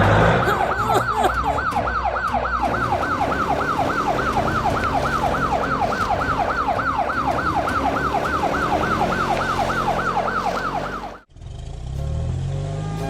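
Siren sound effect in a rapid yelp, a pitch sweep falling over and over at nearly four a second over a low rumble, cutting off suddenly near the end.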